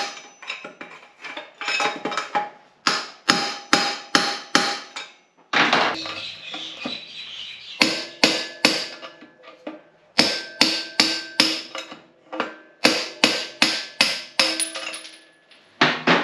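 Hammer blows on the steel front axle at a dirt bike's front wheel hub, in quick bursts of four or five sharp metallic strikes, each with a short ring. A rougher scraping noise lasts about two seconds near the middle.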